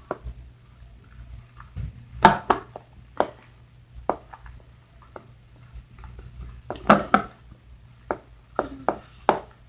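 A utensil stirring glue and shaving foam in a bowl, knocking and scraping against it in scattered short clicks that come in small clusters.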